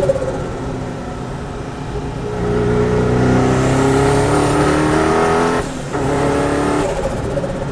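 Mazzanti Evantra Millecavalli's twin-turbo Chevy LS7 V8 accelerating hard. It rises in pitch through the gears, with quick upshifts a little after halfway and again near the end, and a faint high turbo whistle rises alongside the middle pull.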